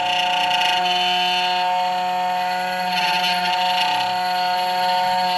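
CNC key cutting machine whining steadily as its spindle and cutter mill a key blank, cutting the bittings of a car key.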